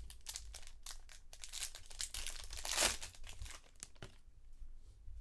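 Wrapper crinkling and tearing as a trading card box and its pack are opened by hand, densest a little before the middle and thinning out near the end.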